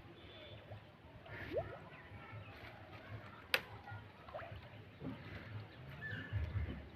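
Outdoor ambience with low rumbling pulses and a few short bird-like chirps, broken by one sharp click about halfway through.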